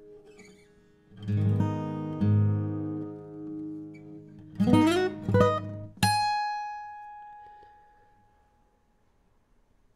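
Acoustic guitar played solo: a few low chords, a quick run of sliding notes, then a single bright high note that rings out and fades away as the closing note of the piece.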